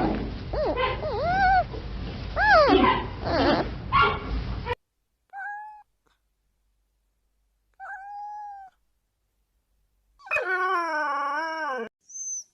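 Animal calls. It opens with a run of high whining cries that slide up and down in pitch and stop abruptly, then two short single-pitch calls a few seconds apart, then one longer wavering call about a second and a half long.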